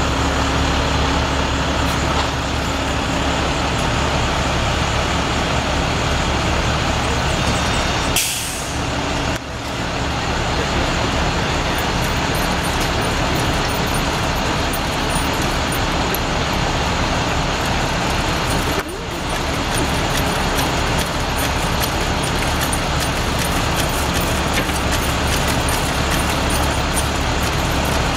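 Bucket truck's engine running steadily under the raised aerial lift: a constant low rumble with a hiss over it. It briefly drops out twice.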